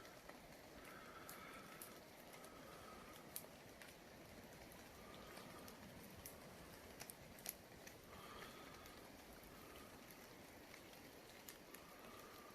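Faint patter of light rain with scattered sharp ticks of drops.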